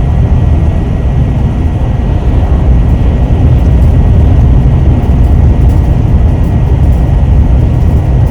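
Steady road and engine noise of a moving vehicle heard from inside the cabin, a low, even rumble with no change in pace.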